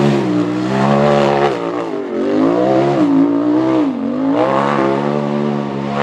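Off-road race buggy's engine revving hard, its pitch rising and falling repeatedly as the throttle is worked on a steep dirt hill climb.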